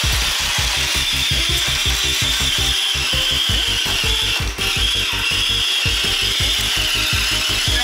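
Small Lego electric motor of a soda-can toy train whining steadily as the train climbs a cardboard ramp, over a fast, even low pulsing of about five or six beats a second.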